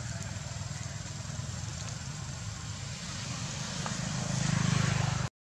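A motor vehicle engine running, a steady low hum that grows louder near the end and then cuts off abruptly.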